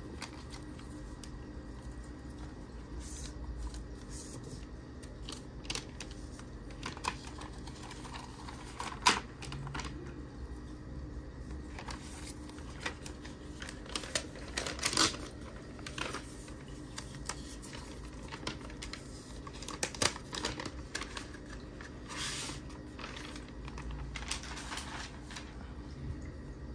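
Handling noise as a MacBook Air M2 laptop is unboxed: rustling of its paper wrap and scattered light clicks and taps from hands and the laptop's aluminium body, with a few sharper knocks spread through.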